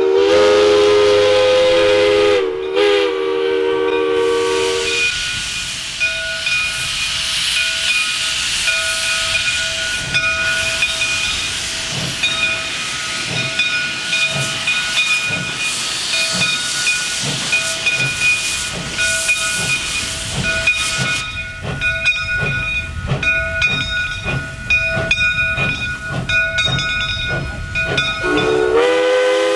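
A 1920 Baldwin 0-6-0 steam locomotive's whistle blows twice, a chord held a couple of seconds each time, then steam hisses steadily as the engine moves off. From about the middle on come slow, evenly spaced exhaust chuffs from the stack as the engine pulls away.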